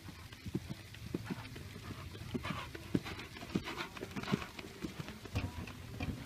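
A horse cantering on a sand arena, its hooves thudding dully and unevenly, roughly twice a second.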